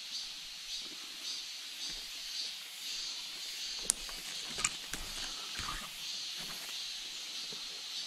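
Footsteps over leaf litter and rocks on a forest floor, with two sharp snaps about halfway through and a few soft thuds just after, over a steady high hiss with a faint pulsing.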